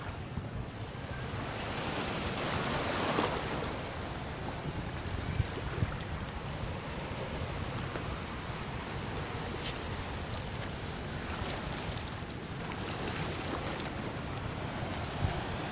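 Sea waves washing against rocks, with wind buffeting the microphone; the surf swells up about two to three seconds in.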